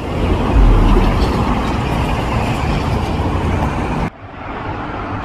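Road traffic on a busy multi-lane street: cars passing close by, an even rush of noise with a heavy low rumble, loudest about a second in. About four seconds in it cuts off abruptly to a quieter traffic hum.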